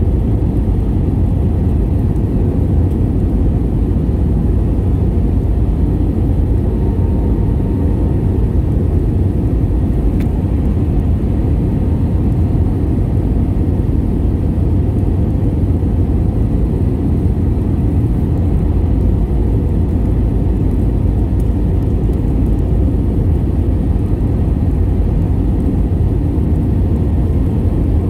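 Steady low rumble of an Airbus A320's engines and airflow, heard from inside the passenger cabin.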